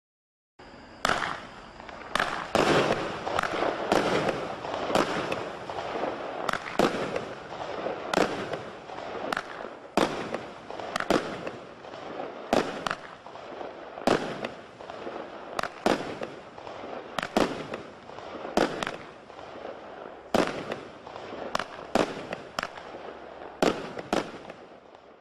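Hell's Gate multi-shot fireworks cake firing its shots in sequence, starting about half a second in: about thirty sharp reports, roughly one every half second to second, with a steady rushing noise filling the gaps between them.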